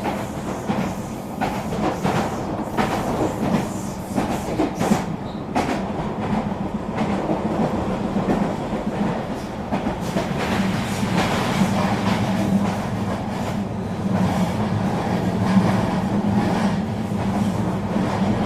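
Eurobahn regional electric train running at speed: a steady rumble of wheels on rail, with irregular clicks and clacks as the wheels pass over joints and points.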